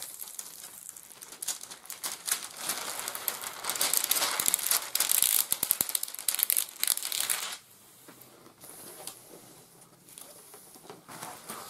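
Plastic-film-covered diamond painting canvas crinkling and crackling as hands smooth and press it flat, dropping to softer rustling about two-thirds of the way through.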